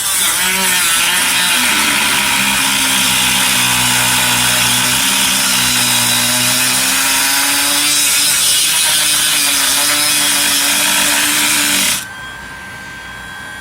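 Small handheld power tool cutting into the lighter's metal, its pitch wavering a little as it works, stopping about twelve seconds in; the metal is getting warm from the cut.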